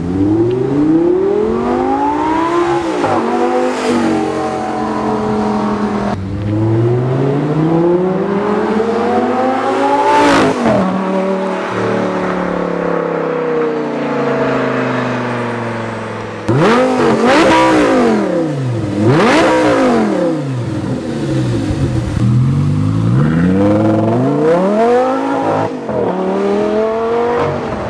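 Audi R8's V10 engine through a Eurowise aftermarket exhaust, accelerating hard and revving repeatedly. The note climbs in pitch again and again and drops back between gears or off the throttle, as the car makes several runs past.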